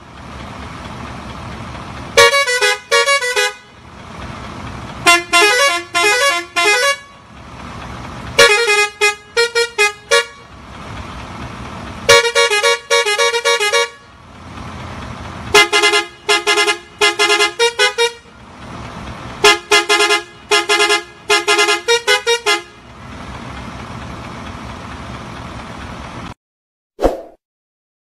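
Ashok Leyland bus's musical horn playing a quick run of changing notes in six bursts of about two seconds each, with steady noise in the gaps between bursts. The sound cuts off near the end.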